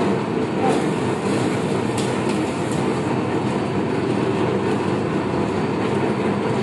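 Motorised sugarcane juice press running, its rollers and gears rattling steadily as a stalk of sugarcane is fed through and crushed.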